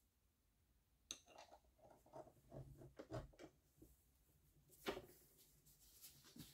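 Faint, scattered clicks and taps of metal being handled at a bench vise as a screwdriver shaft is set in its jaws, with the sharpest click about five seconds in.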